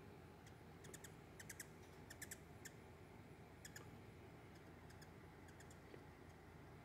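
Faint, short high-pitched chips of hummingbirds, coming in quick little clusters of two to four during the first few seconds, with a couple of fainter ones later, over a near-silent background.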